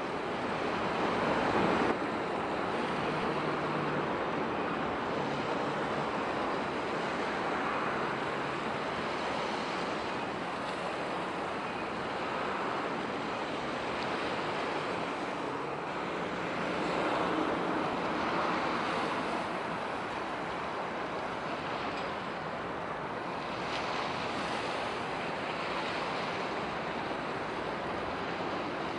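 Steady wind and water noise: waves washing with wind on the microphone, and a faint low hum underneath.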